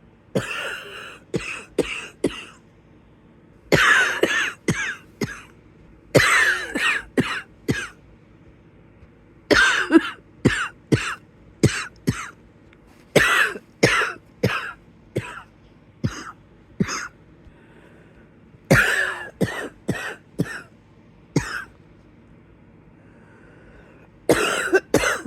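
A person's wheezy cough, coming in about eight fits. Each fit is a hard first cough followed by several shorter ones, with brief pauses between fits.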